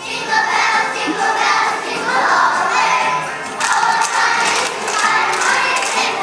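Many young children's voices together in chorus, a blurred mass of voices rather than one speaker.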